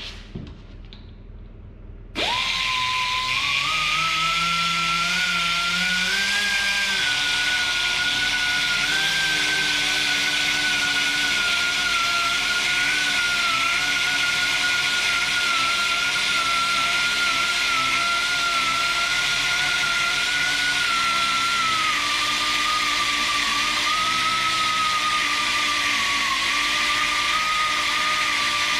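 Pneumatic die grinder starting up about two seconds in and running steadily under load, a high whine over hiss whose pitch wavers and sags a little as it cuts. It is shaving down a weld bead laid over a worn spot on a tractor steering knuckle.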